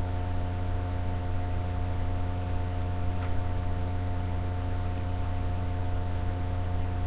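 Steady electrical hum: a strong low drone with a row of higher steady tones above it, over a constant hiss, unchanging throughout.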